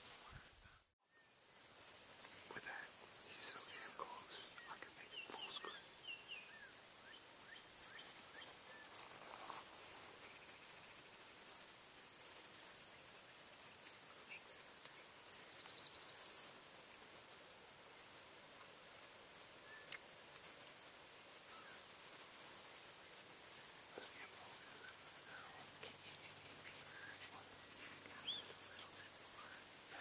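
A steady, high-pitched drone of insects, with two louder pulsing swells lasting about a second each, near the start and about halfway through, and faint scattered bird chirps. The sound cuts out for a moment about a second in.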